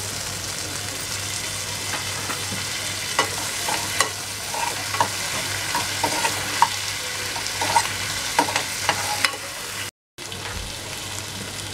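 Onion and capsicum in a thick chilli sauce sizzling in a pan on a high gas flame, stirred with a steel spoon that scrapes and clicks against the pan now and then. The sound cuts out for a moment near the end.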